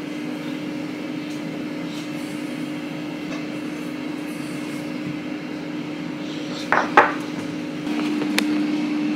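Kitchen sounds: a steady low hum with a short clatter of dishes or utensils about seven seconds in and a lighter knock just after.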